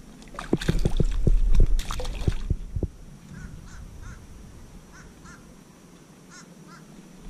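A quick run of knocks and splashes in the first three seconds as a sheepshead is handled and released over the side of a plastic kayak. After that, a bird calls faintly in short pairs, three times.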